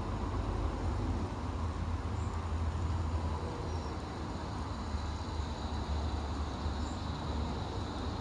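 Steady outdoor background: wind rumbling unevenly on the microphone over a soft even hiss, with a few faint high chirps.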